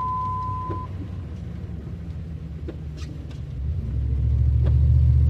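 Pickup truck's engine and road noise heard inside the cab on a snowy road: a steady low rumble that gets much louder about four seconds in. A single steady high beep lasts about a second at the start.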